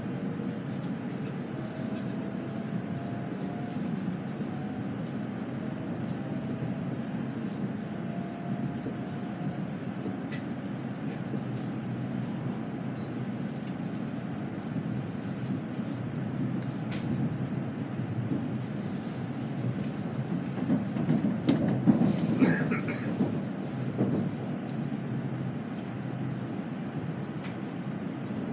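Steady rumble and hum inside a passenger car of an N700A-series Shinkansen running at speed, with a faint whine rising slightly in pitch through the first nine seconds or so and the noise swelling louder for a couple of seconds about 21 seconds in.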